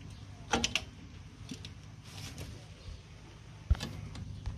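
Metal clicks from a drum brake shoe and its hardware being worked into place on the backing plate by hand: a quick cluster of clicks about half a second in and single sharp clicks near the end.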